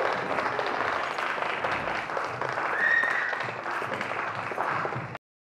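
Audience applauding, with one brief high-pitched cry from the crowd about three seconds in; the applause stops abruptly near the end.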